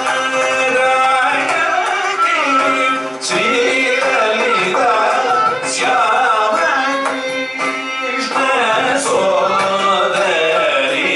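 Carnatic vocal music: two male voices singing a melodic line together, with violin following the melody, a steady tanpura drone underneath and a few mridangam strokes.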